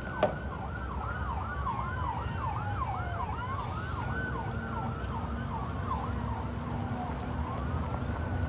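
Emergency vehicle sirens at a road accident: one in a fast yelp, rising and falling two or three times a second, over a slower wail that rises and falls, with a low traffic rumble beneath. A sharp knock sounds just after the start.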